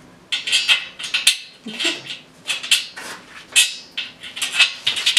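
Screws being driven by hand into the underside of an IKEA FREDDE desk's top shelf to fix the hanger hooks, giving short grating sounds about twice a second with each twist.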